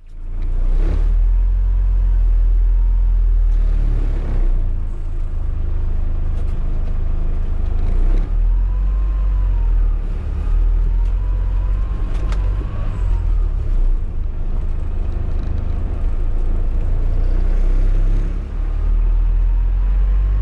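Classic Hymer motorhome driving on wet roads, heard from inside the cab: steady deep engine and road rumble, with the windscreen wipers sweeping.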